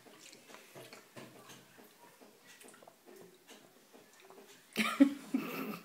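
A baby sucking on the straw of a small juice carton: faint wet sucking and small clicks. Near the end comes a brief, louder burst of the baby's voice.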